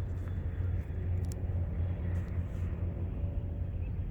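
A steady low rumble, with a few faint sharp clicks.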